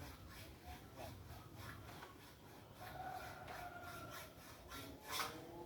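A saw cutting through a bent pipe with quick back-and-forth strokes, about four or five a second, one stroke near the end harder than the rest.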